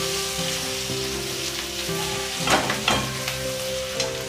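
Chopped garlic, ginger and green chillies sizzling in hot oil in a steel kadhai while a steel spatula stirs them. Two louder scrapes of the spatula against the pan come about two and a half and three seconds in.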